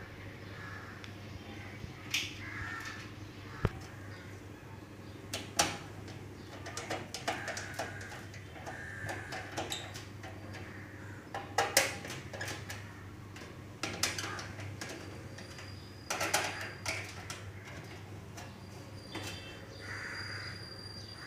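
Screwdriver clicking and scraping against the steel back panel of a desktop computer case as the power-supply screws are undone, with scattered knocks from the metal case being handled over a steady low hum.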